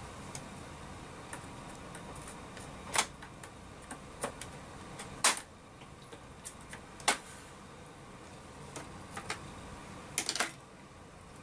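Scattered sharp clicks and taps of plastic and a small screwdriver as the circuit board of a 2006 Ford F-150 instrument cluster is handled and fitted into its plastic housing. The loudest snaps come about five and seven seconds in, with a quick run of clicks near the end.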